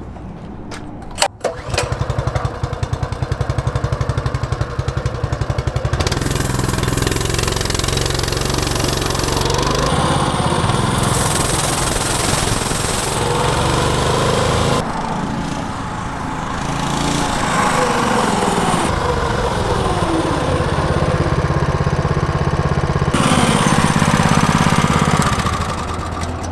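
Coleman RT200 mini bike's single-cylinder engine started, catching about a second and a half in and idling with a pulsing beat, then running and revving up and down as the bike is ridden.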